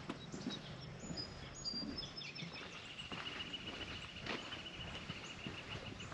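Quiet outdoor ambience: a few short, high bird chirps in the first two seconds, then a steady high trill for about three seconds, with scattered light ticks.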